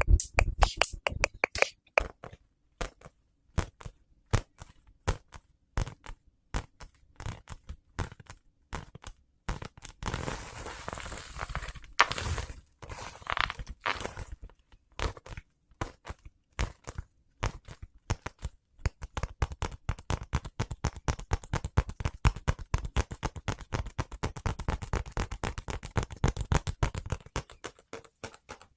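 Close-up handling of a JK-style school uniform's fabric: rustling, rubbing and scratching that comes as rapid, irregular ticks and scrapes. A longer rustle comes about ten seconds in, and a sharper click about two seconds after it.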